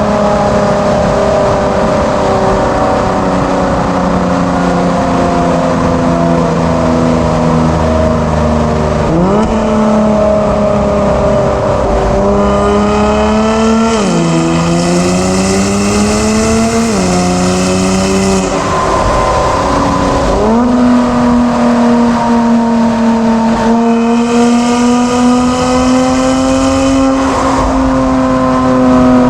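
Kia Stinger 3.3 twin-turbo V6 running through a JSR Performance aftermarket exhaust under real driving. The engine note sinks slowly at first. Through the middle the revs climb and drop sharply a few times, as at gear changes. It then holds a steady note.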